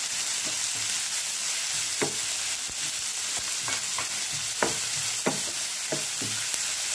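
Chopped onions sizzling in hot oil in a nonstick frying pan, stirred with a wooden spatula that scrapes and knocks against the pan several times at irregular intervals.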